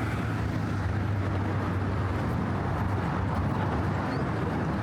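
Steady rumble of passing road traffic with a constant low hum.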